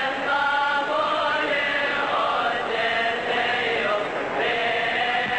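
A choir chanting a Coptic liturgical hymn, several voices together in a steady chant.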